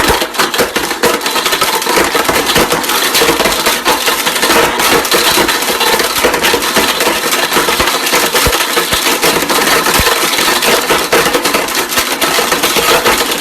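High-powered blender running flat out with an iPhone 7 inside, the phone's pieces clattering and grinding against the jar as it is smashed apart. It cuts off abruptly at the end.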